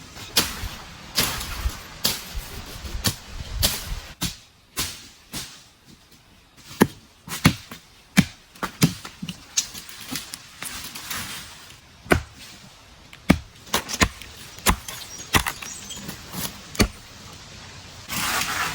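Bamboo being chopped: a run of sharp, irregular strokes, some coming about two a second, with short pauses between groups.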